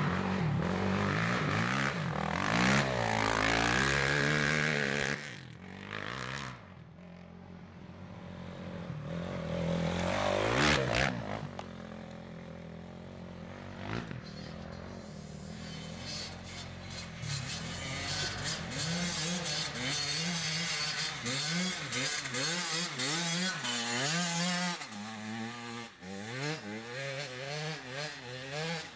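Quad bike engine loud and close, then off-road motorcycle engines revving up and down repeatedly, their pitch rising and falling again and again in the second half.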